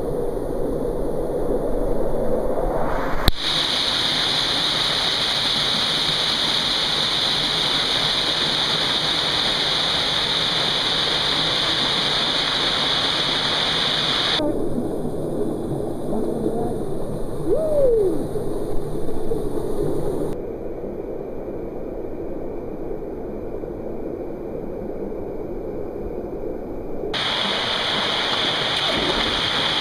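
Creek water rushing and cascading over rocks: a steady rushing hiss that changes abruptly in level and tone several times.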